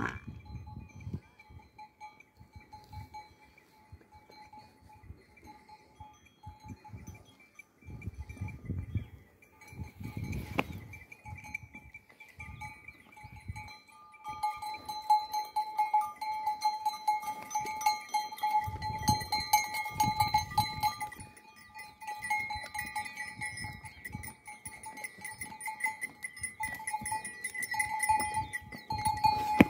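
Bells on the necks of walking water buffaloes clinking and ringing continuously as the herd moves, growing clearly louder about halfway through as the animals pass close.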